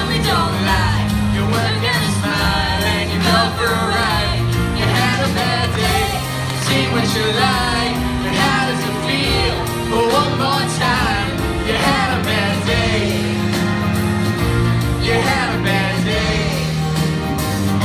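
Live pop singing into microphones over instrumental accompaniment, with a melodic voice line over a steady bass line that changes note about once a second.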